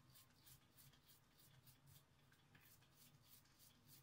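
Very faint soft pats of wet palms on a ball of cracked-wheat and bulgur kibbeh dough, about five a second, pressing the air out of it.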